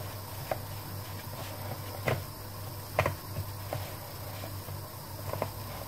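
Gloved hands dredging raw chicken in seasoned flour in a bowl: soft rustling of flour with about five light knocks as the piece is pressed down and touches the bowl, over a steady low hum.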